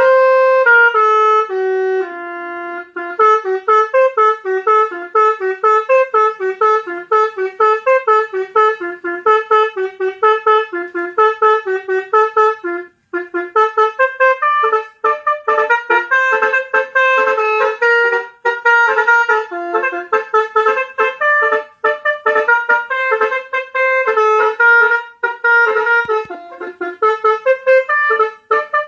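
Telolet multi-tone bus horn playing a quick melody of short, trumpet-like notes, with a brief break about halfway through.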